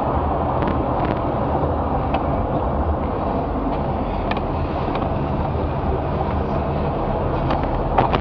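Steady vehicle rumble of engine and road noise, with a few faint clicks and a brief knock near the end.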